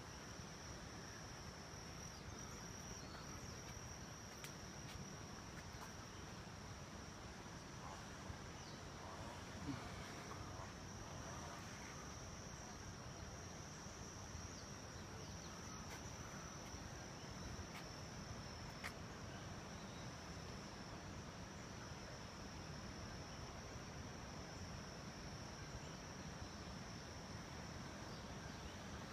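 Steady high-pitched insect chorus, one unbroken trill, over faint rainforest background noise, with a few faint clicks.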